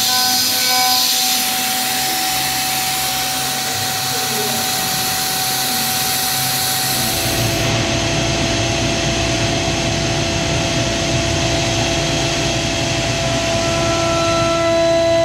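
CNC router spindle turning a quarter-inch two-flute end mill at 15,000 rpm as it cuts aluminium plate, a steady machining noise with a pitched whine, over the hiss of compressed-air mist coolant. About seven seconds in the sound changes: the hiss falls away and a lower, heavier cutting noise with a steady whine takes over.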